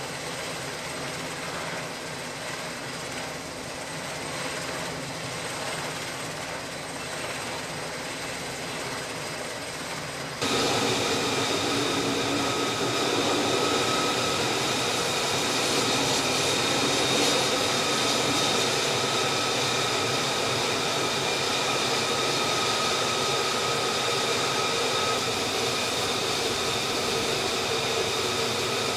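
F-35C's single F135 jet engine running steadily at low taxi power: a continuous rush of noise with high, whining tones. It gets suddenly louder about ten seconds in.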